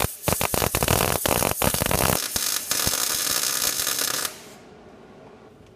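MIG welding arc crackling and sputtering as it lays a bead along a tight-fitting sheet-metal box edge seam. It breaks off briefly several times in the first two seconds, then runs steadier, and stops about four seconds in.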